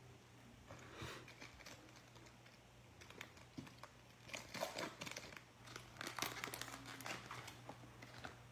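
Faint crinkling and rustling of a trading-card pack wrapper being torn open by gloved hands, with the cards slid out; the crinkles grow busier about halfway through.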